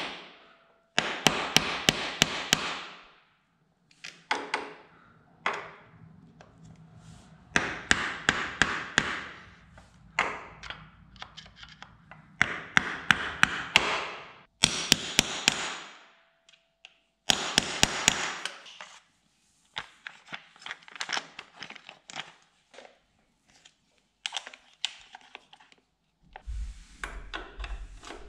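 Ratchet wrench and hand tools working on a motorcycle's front sprocket nut and chain: repeated bursts of rapid ratchet clicking, each a second or two long, with short pauses and lighter metal taps and clinks between them. A few dull knocks near the end.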